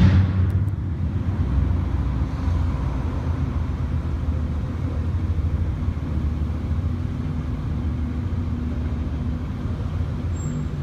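A vehicle driving along: a steady low drone of engine and road noise, with a brief louder rush right at the start.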